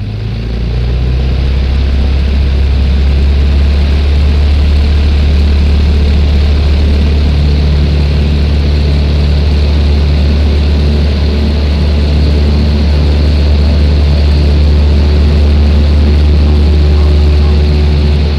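Single-engine light aircraft's engine and propeller heard from inside the cabin, coming up to full takeoff power about a second in and then holding a loud, steady drone during the takeoff roll.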